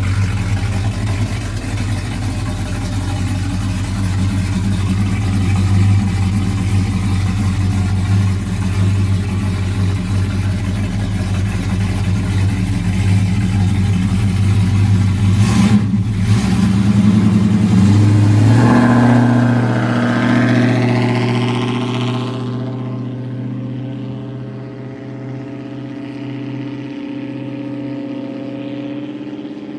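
1969 Ford F100's 390 FE V8 idling through dual Borla ATAK mufflers with an X-pipe, a steady low exhaust note. A little over halfway through it revs up as the truck pulls away, then the sound fades and dulls as it drives off.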